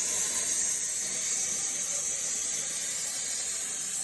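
LGK-100 plasma cutter's torch cutting metal: a steady, high hiss of the arc and its air jet.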